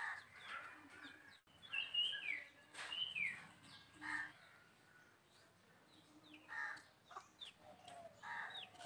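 Faint birdsong: scattered short chirps and a few downward-sliding calls, clearest about two to three seconds in.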